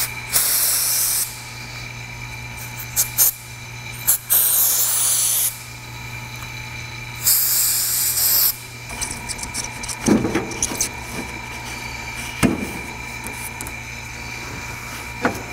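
Aerosol can of silicone spray hissing in three bursts of about a second each as it lubricates a rubber window run channel. Two dull knocks follow later.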